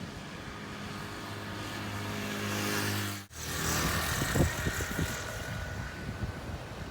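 Motorcycle engine running with a steady hum. About three seconds in it breaks off abruptly, then comes back rougher and uneven.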